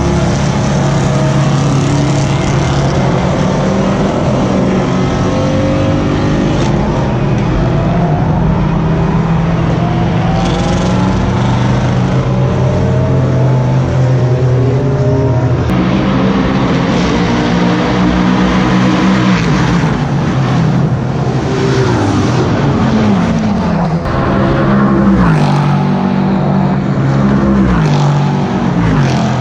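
Several race cars accelerating hard on the straight, their engine notes overlapping. In the second half the pitch climbs and drops back again and again as they shift up through the gears.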